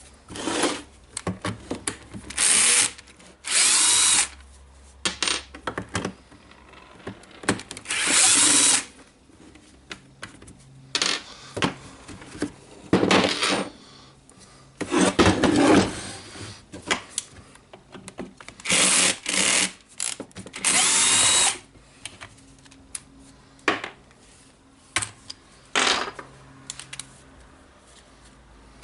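Cordless electric screwdriver running in short bursts, about ten of them, each a second or less with a whine that rises and falls, taking the housing screws out of a cordless circular saw. Small clicks and rattles of handling fall between the bursts.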